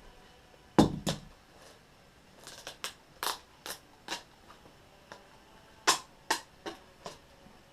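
A package being opened and handled by hand: a string of sharp crackles, clicks and scrapes, with two loud strokes about a second in and again near six seconds in.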